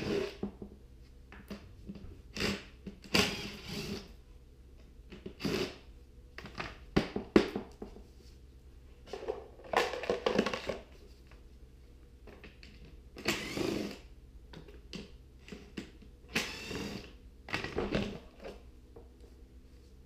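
Cordless screwdriver running in short bursts, backing screws out of a small Yardworks generator's plastic side cover, with clicks and clatter of screws and the plastic panel being handled between bursts.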